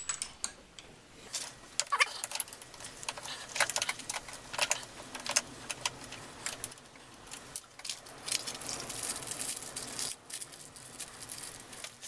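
Light, irregular metallic clicks and clinks of an Allen key working in a cam roller's socket and small steel tools being handled against a steel steady rest, as the cam roller is being unscrewed.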